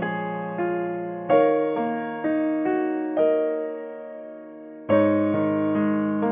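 Background piano music: a slow melody of single notes and chords, each struck and left to ring and fade. After a lull of over a second, a louder chord starts a new phrase near the end.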